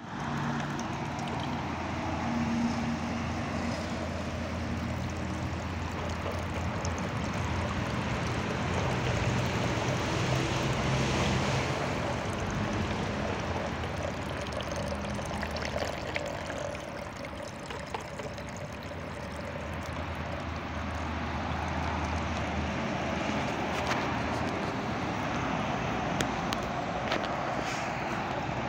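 Small garden fountain's water trickling and splashing onto its turning plastic water wheel, steady throughout, with a low steady hum underneath.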